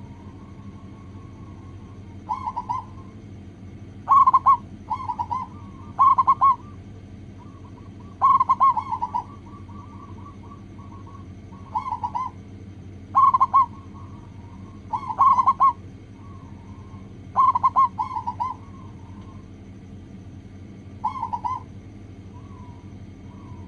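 Zebra dove cooing: short bursts of rolling coos, often in pairs or threes, repeating every one to two seconds. A steady low hum runs underneath.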